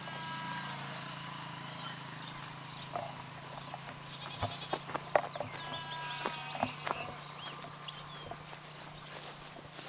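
Farm animals calling: short bleat-like cries at the start and again around six seconds in, with small birds chirping and a few sharp knocks in between.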